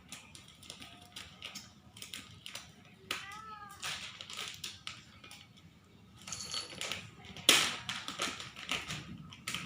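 Plastic packaging of kinetic sand crinkling and crackling as it is handled and opened, in quick irregular clicks that grow louder about three quarters of the way in.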